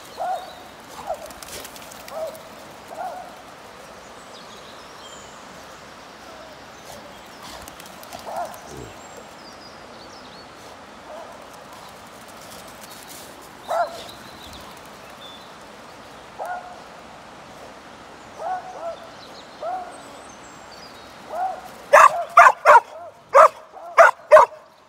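Springer spaniel barking: short yelps and barks spaced out over a steady rush of flowing water, then a rapid string of about eight loud barks near the end.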